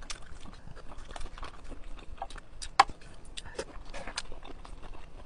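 Close-up eating sounds: a steady run of small wet clicks and ticks from chewing a mouthful of noodles, with one sharper click a little before the middle.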